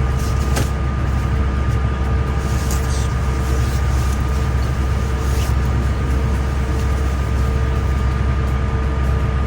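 Steady low mechanical drone with two constant whining tones, unchanging throughout.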